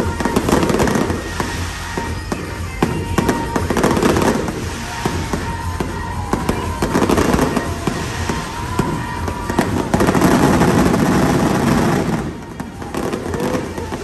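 Aerial fireworks bursting in rapid succession: dense overlapping booms and crackling that thin out and fall off about twelve seconds in.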